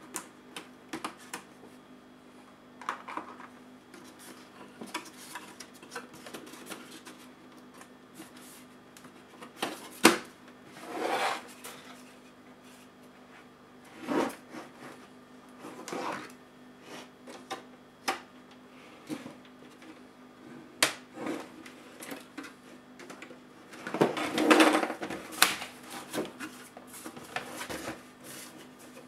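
Plastic laptop case parts of a Dell XPS L501X being pried apart and handled: scattered small clicks and taps of clips and tools, a sharp knock about ten seconds in, and short scraping rasps, with a longer stretch of scraping near the end.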